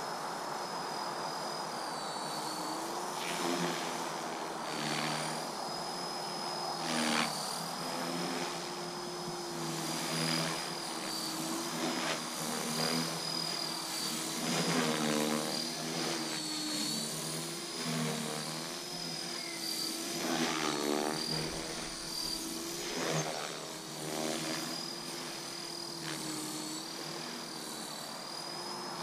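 Align T-Rex 450 electric RC helicopter in flight, its motor and gear whine steady but dipping and recovering in pitch again and again, with the rotor noise swelling in short bursts on each change.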